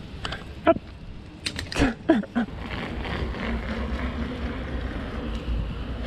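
A few short clicks and squeaks in the first two seconds, then a steady rush of wind on the camera microphone and a low rumble of bicycle tyres rolling over a paved path.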